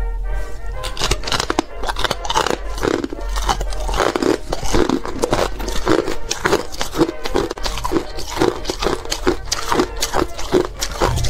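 Frosted ice chunks being crunched and chewed, a fast irregular run of sharp crunches, about three or four a second.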